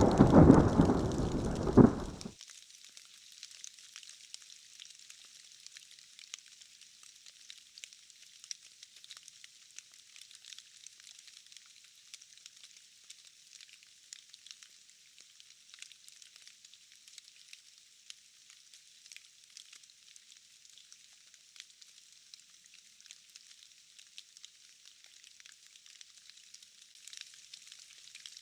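A thunderclap rumbles loudly and cuts off suddenly about two seconds in, leaving steady rain patter, a faint, thin, crackling hiss with no low end.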